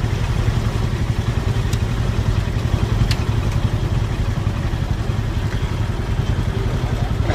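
An engine running steadily with a low rumble, with two faint ticks a little over a second apart early in the sound.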